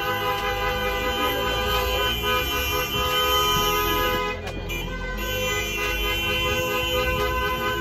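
Several horns sounding together, held on in a steady, sustained blare of overlapping pitches.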